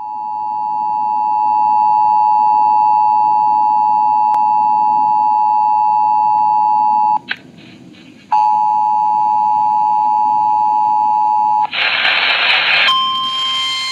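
Emergency Alert System two-tone attention signal, two steady tones sounding together, heard as a loud dual-tone drone. It holds for about seven seconds, breaks off for about a second, then sounds again for about three seconds. A second of harsh noise follows, and a single slightly higher steady alert tone starts near the end.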